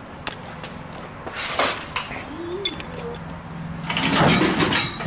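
Scattered metal clanks and knocks, with a louder rushing noise near the end, while the old steel rear bumper of a Ford F100 hangs from the chain of an engine hoist and is worked loose.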